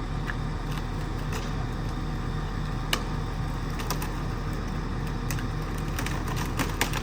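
An engine running steadily at a low hum, with scattered sharp clicks and ticks over it.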